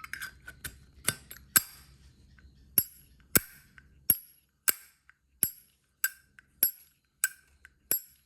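1954 Zippo lighter's hinged lid being snapped open and shut again and again, each snap a crisp metallic clink; the clinks come irregularly at first, then settle into a steady rhythm of about one every 0.6 s. The sound is one the seller calls really nice.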